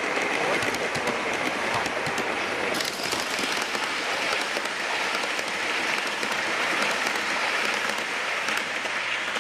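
G gauge model train running past at speed on a garden railway layout: a steady rush of wheels rolling on the track, with a fast patter of fine clicks.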